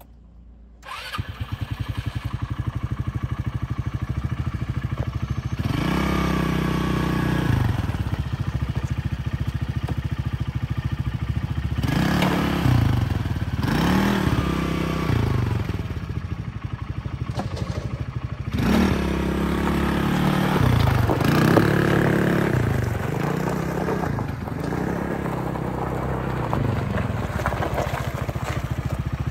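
Small engine of a 2014 Polaris two-seat youth side-by-side running as it is driven around on gravel. It comes in about a second in, then revs up and falls back several times, pitch rising and dropping with each throttle change.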